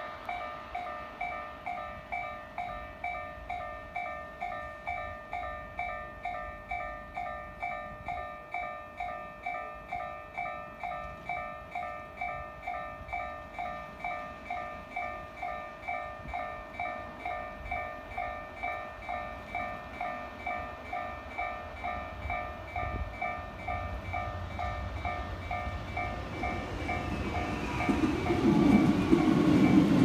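Level-crossing warning bell ringing steadily at about two strokes a second. Near the end the rumble of an approaching JR Freight EF210 electric locomotive rises and grows louder.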